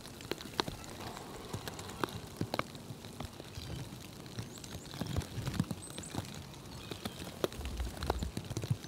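Outdoor winter ambience of many irregular sharp ticks and taps, with low rumbles about five and eight seconds in and a few faint high bird chirps in the middle.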